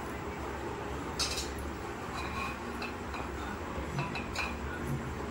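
A steel spoon clinking and scraping against a stainless steel pot while mixing boiled potato cubes. There are several irregular clinks, the sharpest about a second in.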